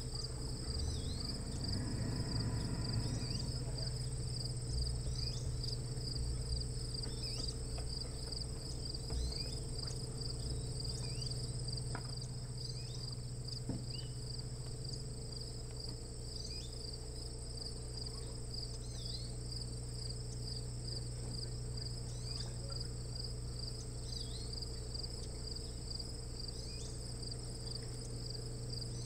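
Crickets chirping in a steady, evenly pulsing high trill, over a low steady hum.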